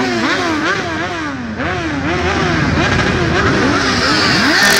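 Motorcycle engines revving in quick throttle blips, several overlapping, the pitch sweeping up and down two or three times a second; near the end it grows louder and one engine holds a steadier pitch.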